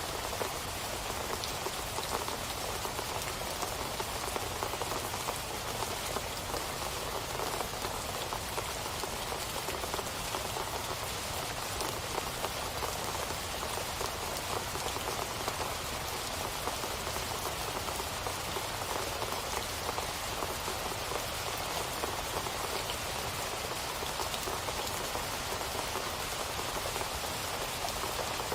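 Steady rain falling on a surface, a dense patter of countless drops without letting up.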